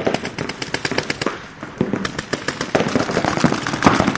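Paintball markers firing rapid shots in quick succession, many cracks a second, thinning out briefly about a second and a half in before picking up again.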